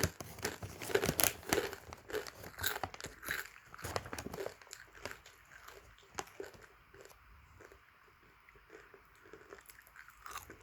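Crisp pork crackling (chicharon) being bitten and chewed, a dense run of crunches that thins out about halfway to faint, scattered crackles.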